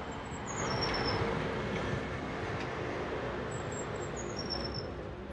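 Steady road and street noise from a moving bicycle, with wind on the microphone. Twice a short, high whistle falls in steps, once near the start and again about two-thirds through.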